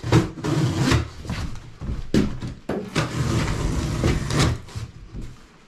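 Large cardboard shipping box being cut open and pulled apart by hand: repeated scraping, rustling and tearing of cardboard with a few knocks, the sharpest just after the start, easing off near the end.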